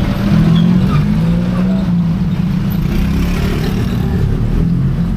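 A motor vehicle engine running close by with a steady low drone, its pitch wavering slightly, easing off just after the end.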